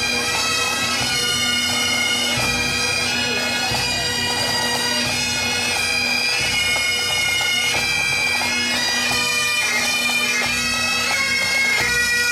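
Pipe band of Great Highland bagpipes playing a march tune over their steady drones, with the band's drums beating underneath.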